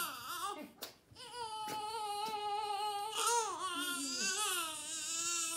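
Newborn baby crying: a short cry, a brief catch for breath about a second in, then one long cry that wavers in pitch.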